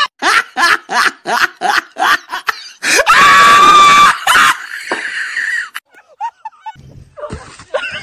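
A person laughing hard in rapid bursts, about four a second, then a loud, long high-pitched scream about three seconds in. A shorter cry follows near the end.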